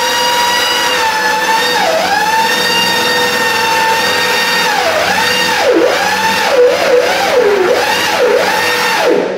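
Electric drill boring a hole saw into a wooden door for the lock: a steady motor whine that sags in pitch again and again as the saw bites into the wood, most often in the second half, then stops right at the end.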